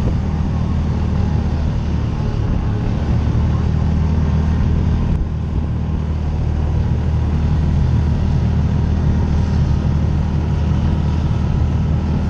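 Side-by-side UTV engine running steadily while driving, a low drone picked up by a camera mounted on its hood, with a brief dip about five seconds in.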